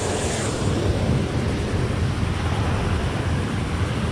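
Steady rush of water pouring over a low weir, a constant even roar with a heavy low rumble.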